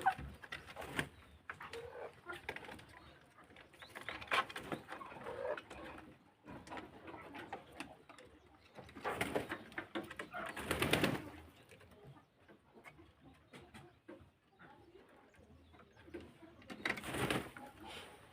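Birds calling in scattered bursts, four louder spells of calls over softer background bird sounds.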